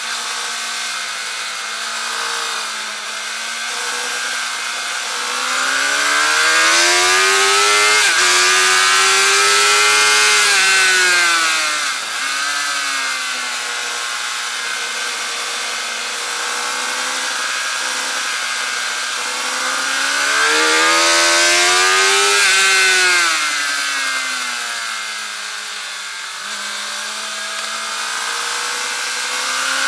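Suzuki GSX-R 750 K8's inline-four engine at track speed, heard from a camera on the bike, with wind rush throughout. Twice it climbs in pitch as the bike accelerates, holds high for a few seconds, then drops back.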